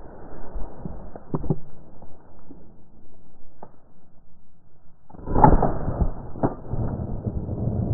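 Two shotgun shots about a second apart, each a sudden loud crack, trailing off in a long rumbling echo.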